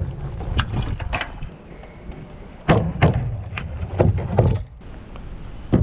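Bicycle wheels thumping up onto and down off a wooden log, with tyres rolling close by on asphalt. There are several knocks and thumps, the loudest a little over a second apart around the middle.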